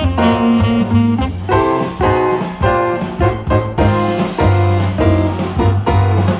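Jazz with piano, saxophone and drums over a strong bass line, played through a JBL Charge 4 portable Bluetooth speaker in a sound test.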